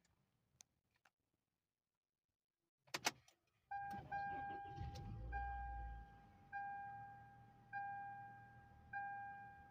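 A couple of clicks, then a car's warning chime dinging repeatedly, about once every second and a bit, each ding fading away, with a brief low rumble after the first few dings.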